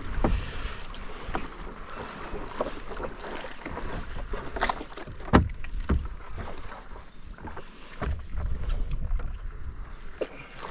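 Irregular knocks and thumps aboard a small boat over a low rumble of water and wind on the microphone.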